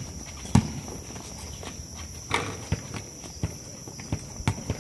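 Basketball bouncing on an outdoor hard court, mixed with players' running footsteps: one loud bounce about half a second in, then a few lighter thuds. A steady high-pitched tone runs underneath.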